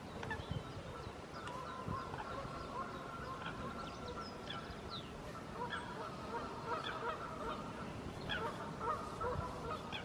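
Wild birds calling: a continuous chorus of calls, with many short, high chirps scattered through it.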